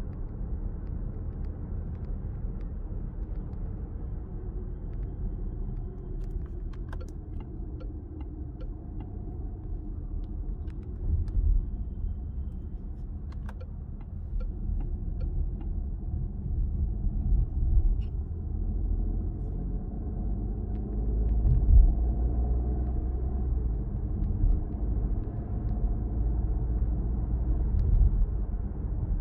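Cabin noise inside a moving Peugeot 408 1.2 PureTech 130: a steady low road and tyre rumble with engine drone, swelling louder a few times, with a few faint clicks over it.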